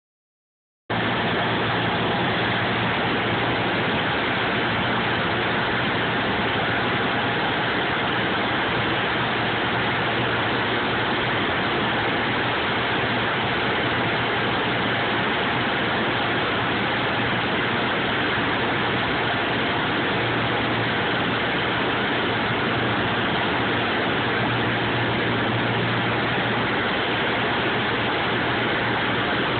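Cabin noise of a Cessna's piston engine and propeller on approach: a steady drone with a low hum under a broad rushing noise, starting abruptly about a second in.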